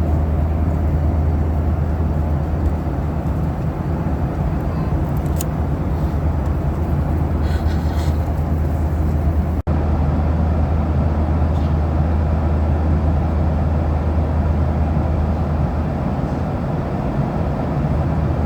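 Steady in-flight cabin noise of a Boeing 737-800 at cruise: a deep, even rumble of engines and airflow. A few faint light clicks come in the first half, and the sound cuts out for an instant about halfway through.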